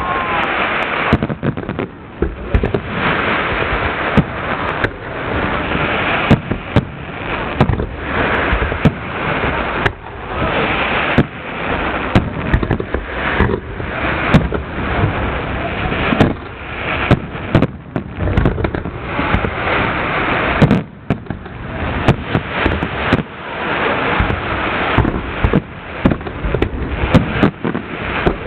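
Aerial fireworks display: a rapid, continuous barrage of shell bursts, sharp bangs over a dense crackling wash, with a short lull about 21 seconds in.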